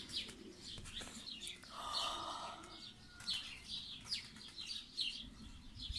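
Small birds chirping over and over in the background, several short calls a second.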